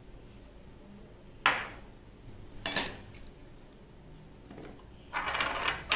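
A utensil clinking and scraping inside a stainless steel cocktail shaker. There is a sharp clink about a second and a half in, a smaller one just under three seconds in, then about a second of clattering near the end.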